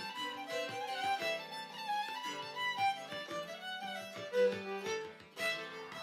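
Background music led by a violin playing a melody of short, changing notes.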